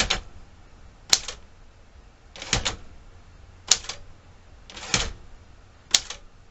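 Smith Corona Galaxie 12 typewriter clacking as its carriage jumps to the set tab stops: about six sharp clacks, roughly a second apart, some of them doubled.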